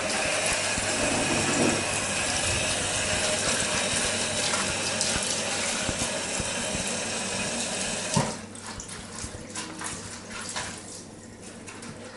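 Tap water running steadily into a sink as the fireplace glass is rinsed under it; the flow cuts off suddenly about eight seconds in, leaving scattered light clicks and knocks.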